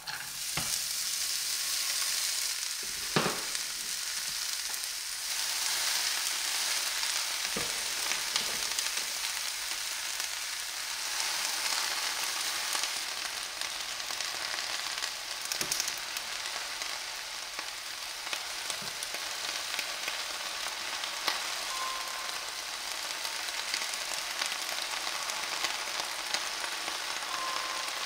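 Cut green beans and spinach sizzling in a hot frying pan, a steady hiss with a few short knocks.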